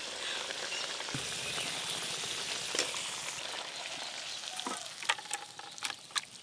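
Mixed-vegetable curry in milk gravy cooking in a kadai with a steady hiss. From about four seconds in come sharp metal clinks and scrapes, and the food drops, as the kadai is tipped and the curry is emptied into a stainless-steel bowl.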